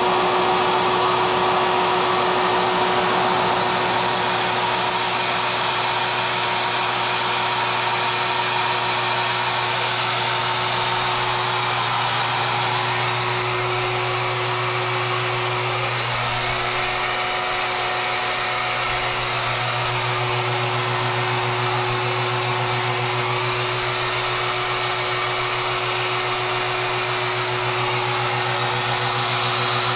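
Router motor on the Maslow CNC sled running steadily while the machine works through a test pattern, a continuous motor whine with a brief dip in its low hum a little past halfway.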